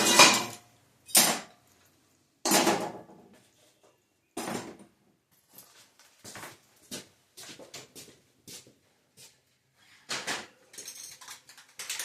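Metal clanking as a tin can is fitted into a metal exhaust pipe. A loud clatter comes first, then three sharp clanks a second or so apart, lighter scattered taps and clicks, and another clank near the end.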